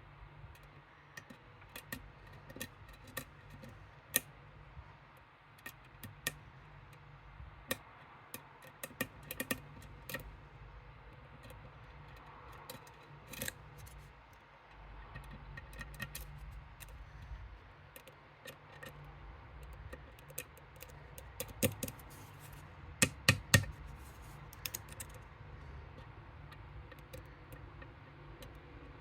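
Small irregular metal clicks and ticks of lock picks working the pins of a Medeco M3 lock cylinder, with a run of louder clicks about three quarters of the way in.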